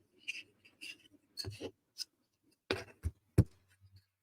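Wooden puzzle pieces clicking and tapping together as they are handled and fitted, a scatter of light knocks with the sharpest one about three and a half seconds in.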